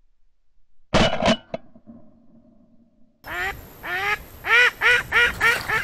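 Two loud, sharp bangs close together about a second in, with a fading ring after them. Then ducks quacking in a quick series of calls.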